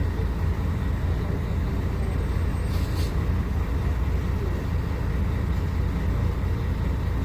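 Diesel engine of a Mercedes-Benz O500UA superarticulated BRT bus running steadily, a low even rumble with no revving. A short faint hiss comes about three seconds in.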